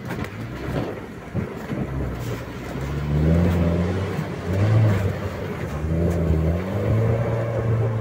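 A 4x4 SUV's engine pulling under load as it drives through a river ford, the revs rising about three seconds in and again near six seconds.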